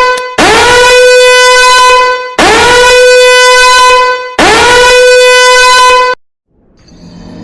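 Loud horn blasts, each about two seconds long. Each one swoops quickly up into a single steady note. After the tail of one blast come three more, evenly spaced, which cut off abruptly about six seconds in. A faint, different sound starts near the end.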